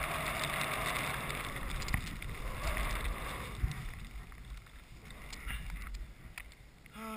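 Skis hissing through fresh powder snow, a steady rush that dies away about three and a half seconds in as the skier slows to a stop. A few faint clicks and knocks follow, and a voice calls out briefly at the very end.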